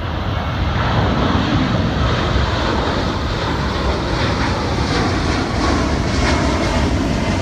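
Jet airliner taking off and climbing: a steady jet engine roar with a strong low rumble.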